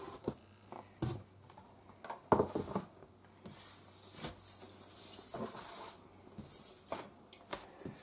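Scattered handling noises: cardboard packaging rustling and scraping, with a few light knocks.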